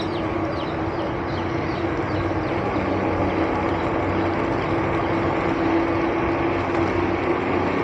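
Steady wind and tyre noise from riding a JackRabbit micro e-bike along a road, with a steady low hum underneath.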